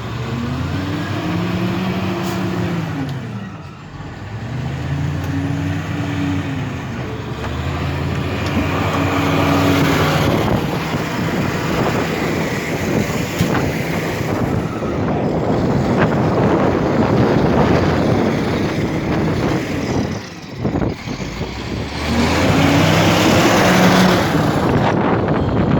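Heavy vehicle engine revving up and falling back several times, each rev lasting two or three seconds, over steady wind noise.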